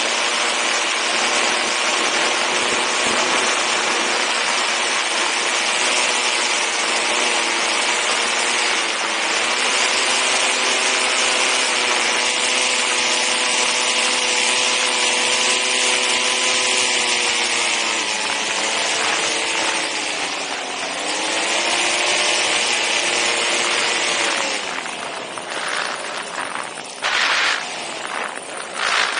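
Paramotor engine and propeller running steadily in flight under a strong rush of air. About two-thirds of the way through the pitch dips and climbs back; near the end it falls away as the throttle comes back, leaving uneven wind buffeting on the microphone.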